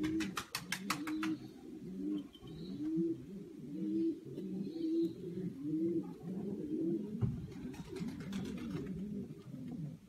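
Old German Cropper pigeons cooing: a steady series of low, repeated coos, one or two a second. A brief quick clicking runs through the first second.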